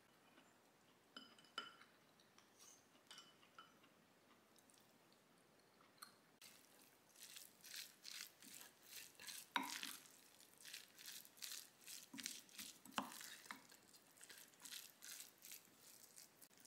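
Wooden spoon stirring and mashing bibimbap rice in a ceramic bowl: faint clicks at first, then from about six seconds in a run of quick, wet scraping strokes, a little over two a second, with a couple of sharper knocks of the spoon against the bowl.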